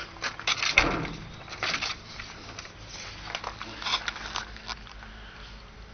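Footsteps, scuffs and knocks of someone clambering up into the cab of a military truck, with a heavier thump about a second in and clothing rubbing against the microphone.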